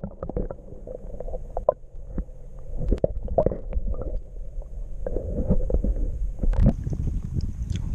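Muffled underwater rumble and gurgling of moving water, heard through an action camera's microphone held under the lake surface, with scattered knocks and clicks.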